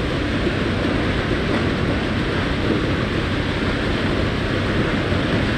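Concrete mixer truck running with its drum turning as concrete is poured, a steady, unbroken rumble.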